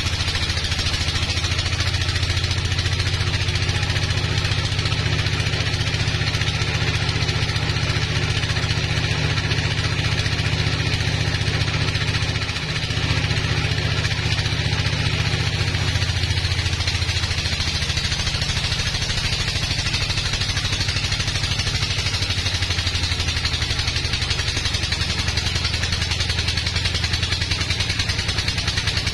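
Engine of a log sawmill running steadily under load while the saw cuts through a large hardwood log, with a brief dip in the engine note about twelve seconds in.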